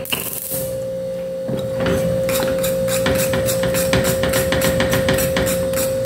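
Metal wire whisk beating thick cornmeal polenta in an aluminium pot, clinking against the pot about four times a second from about a second and a half in, to break up the lumps. A knock comes right at the start, and a steady hum runs underneath.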